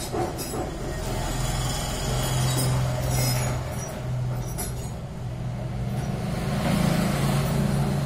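Steady low hum of a vehicle engine running in the street, with a second, higher engine note joining about six seconds in.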